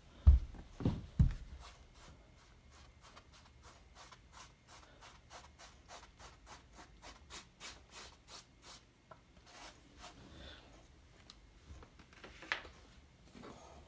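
A thin painting tool scrubbing paint onto a stretched canvas in short rubbing strokes, about three a second for a stretch in the middle. A few low thumps near the start and a single knock near the end, the canvas being handled.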